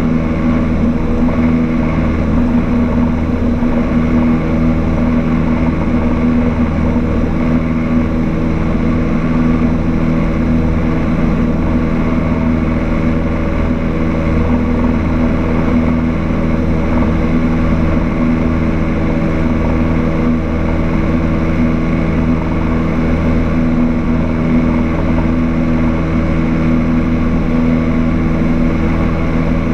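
Cessna 152's four-cylinder Lycoming engine and propeller at full takeoff and climb power, a steady unchanging drone heard inside the cabin.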